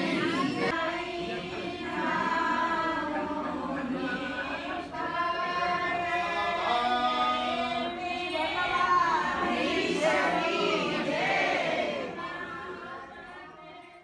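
A crowd of devotees singing together, many voices overlapping with some long held notes. It fades out over the last two seconds.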